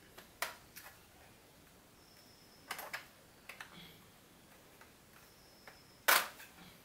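Plastic clicks and snaps from the AZOM Exigo v4 laptop's bottom cover as fingers pry at its edge and its clips give: a few light clicks, a cluster in the middle, and one loud snap near the end.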